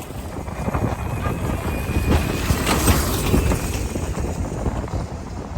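Busy city street noise with wind buffeting the microphone in uneven low gusts.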